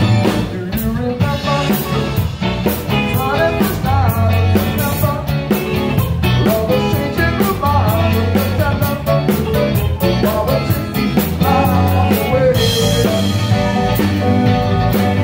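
Loud rock music with a steady drum beat, bass and guitar, and a singing voice.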